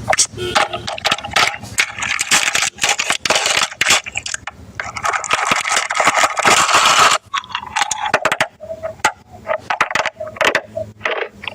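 Close-up crunching of food: a dense run of crackling clicks in the middle, thinning to separate crunches near the end.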